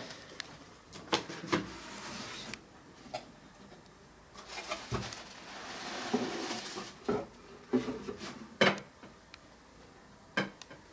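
Cardboard box being opened and handled: cardboard rustling and scraping, with several sharp knocks and clicks as something is lifted out of it.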